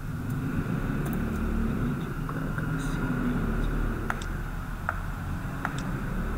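Steady low background rumble and hum, with a few sharp clicks from a computer mouse as windows are dragged and resized.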